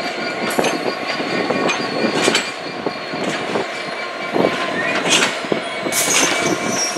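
Freight train shunting, with its wheels knocking irregularly over rail joints and points and a thin wheel squeal; a brief rising squeal comes about five seconds in.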